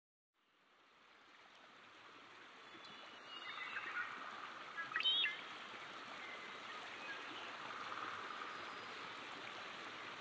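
Running-water ambience fading in, a steady quiet hiss of flowing water. A few short, high chirps sound about three to five seconds in.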